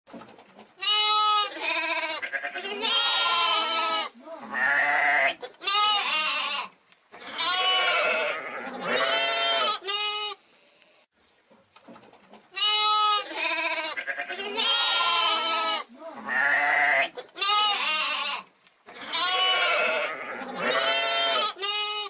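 Hogget (yearling lamb) bleating over and over in loud, quavering calls. A run of about eight bleats lasts some ten seconds, and after a short pause the same run comes again.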